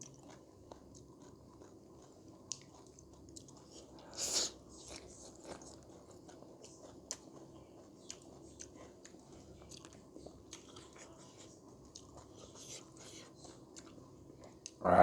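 Close-up chewing and biting of food, with many small wet mouth clicks and crunches. There is a louder crunch about four seconds in and a louder thump right at the end.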